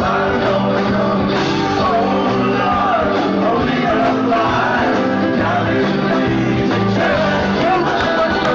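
Live rock band playing loudly: electric guitars, drums and keyboards, with a voice singing over them.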